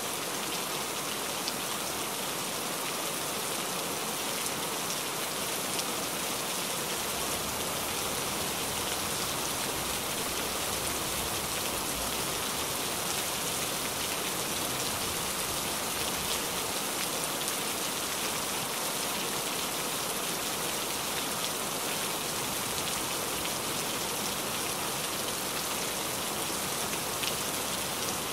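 A pan of meatball soup simmering: a steady fizzing hiss with faint fine crackles.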